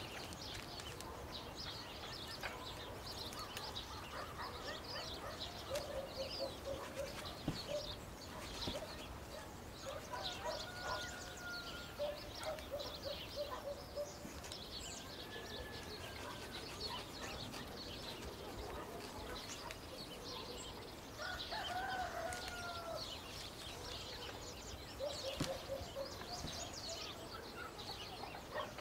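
Chickens clucking in short runs several times, over a steady background of small birds chirping.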